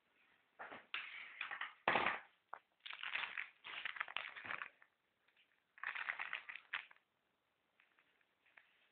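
Close handling noise: irregular bursts of rubbing and rustling, with a sharper knock about two seconds in, as the phone is moved and an orange and a small box are handled on a tabletop.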